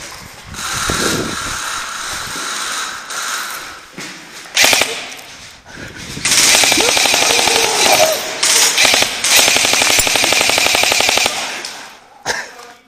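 Airsoft gun firing on full auto, a rapid even rattle of shots: a short burst about four and a half seconds in, then a long burst of about five seconds.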